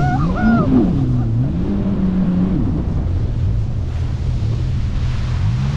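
Jet ski engine running at speed, its pitch falling and rising as the throttle is eased and opened, over a steady rush of spray and wind.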